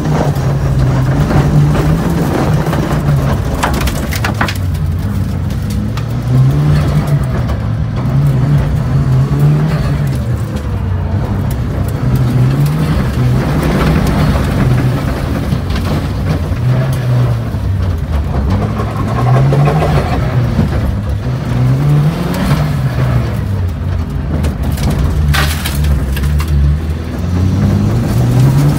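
Mitsubishi Lancer Evolution III rally car's turbocharged four-cylinder engine heard from inside the cabin, revving up and dropping back again and again as it is driven hard through gear changes and corners. A sharp knock cuts through near the end.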